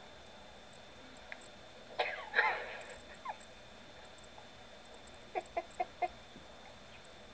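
Short animal calls: one call with wavering, gliding pitch about two seconds in, a brief note a second later, then four quick short notes in a row near the end, over faint background hiss.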